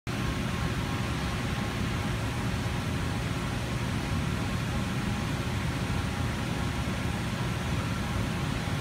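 Steady hum and rush of air from the cooling fans of an HP Scitex TJ8350 wide-format inkjet printer standing powered up, with faint steady tones over a low drone and no print-carriage strokes.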